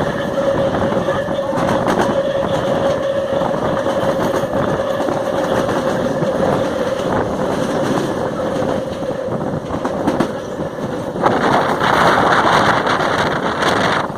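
FNV/Cobrasma Series 4400 electric train running, its traction motors growling loudly with a steady whine that sinks slightly in pitch, over faint clicks from the track. About eleven seconds in, a louder rushing noise takes over and the whine drops out.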